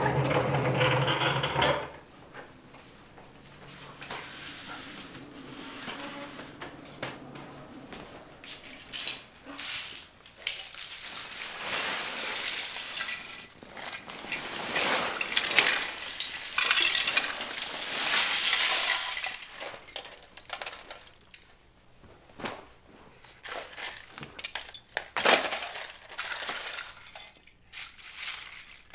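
Loose Lego bricks clattering and clinking on a tile floor as they are tipped out and rummaged through, in waves of rattling plastic. It opens with a scrape of about two seconds, furniture being pushed across the tiles.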